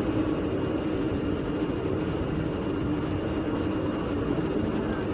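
Fabric CNC cutting machine running, a steady mechanical hum with a constant low tone as its cutting head works across the fabric.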